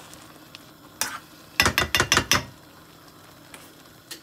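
Spoon stirring and scraping in a frying pan of liver simmering in onion gravy: one scrape about a second in, then a quick run of about six strokes, over a faint sizzle.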